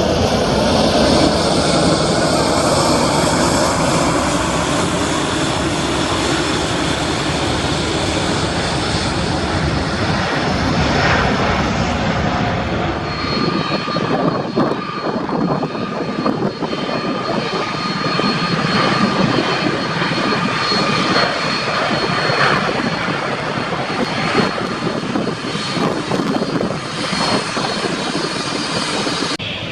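Jet airliner engines running close by, a loud rumbling roar with wind buffeting the microphone. About halfway through the low rumble fades and a steady high-pitched engine whine remains.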